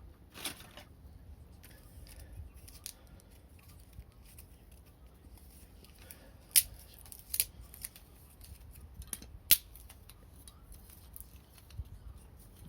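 Wood fire crackling, with scattered sharp pops and snaps, the loudest about six and a half and nine and a half seconds in.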